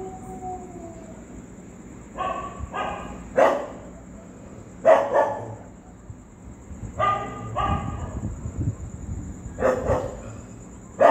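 Street dogs barking: short, sharp barks, often two in quick succession, repeating every couple of seconds, about nine barks in all.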